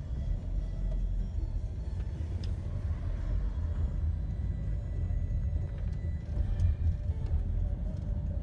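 Low, steady road rumble of a moving car heard from inside the cabin, with faint music playing along with it.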